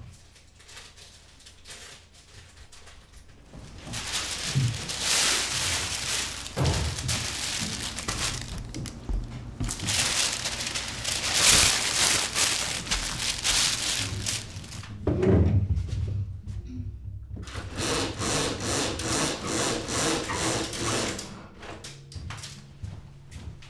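Rustling and rubbing as printed sheets are handled and folded by hand, then a rapid rhythmic rasping near the end.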